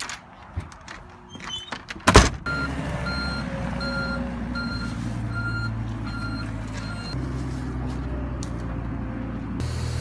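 A sharp bang about two seconds in, then a heavy vehicle's engine running steadily while its reversing alarm beeps about twice a second for roughly five seconds.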